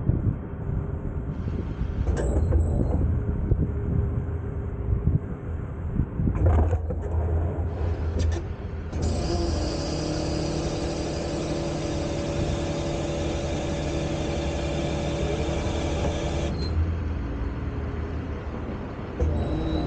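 Tow truck engine running, with a few sharp clanks. About halfway through, a steady hydraulic whine from the wheel-lift comes in over the engine and cuts off suddenly about seven seconds later.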